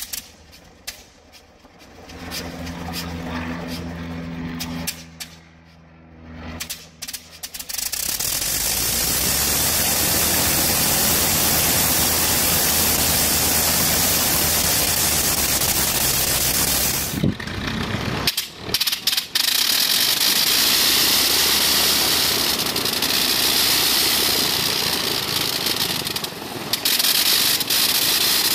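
Le Rhône nine-cylinder rotary aircraft engine being hand-propped on a test stand: it turns over with irregular pops and coughs, catches about eight seconds in and then runs steadily. After a break around eighteen seconds in, a rotary engine runs steadily again.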